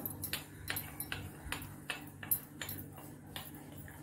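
Brass sev maker (hand-screw noodle press) being screwed together and its handle turned: a run of light, irregular metal clicks and taps, about two or three a second.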